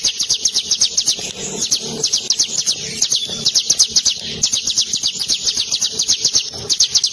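Caged ciblek gunung (a prinia) singing its long rolling song: a fast, unbroken run of sharp high notes at about eight a second, with only brief pauses.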